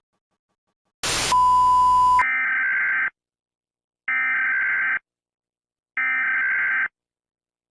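A short burst of static and a loud steady beep, then three identical buzzing bursts about a second long and a second apart: an Emergency Alert System SAME data header, the digital screech that opens an EAS alert.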